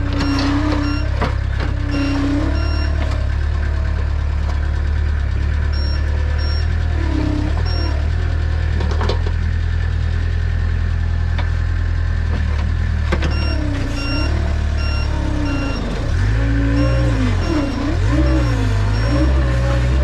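Gehl skid steer's engine running under load as it works in deep mud, its pitch rising and falling, most of all near the end. A faint backup alarm beeps repeatedly, with an occasional clank of the loader.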